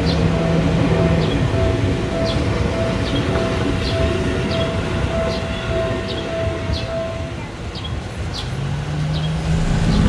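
Japanese level-crossing warning bell ringing in steady repeating 'kan-kan' pulses while an electric commuter train rolls past with continuous wheel and rail noise. The bell stops about seven seconds in, as the train clears the crossing.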